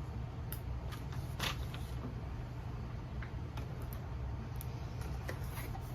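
Small cardboard product box being picked up and handled, giving scattered light clicks and taps, the loudest about one and a half seconds in, over a steady low hum.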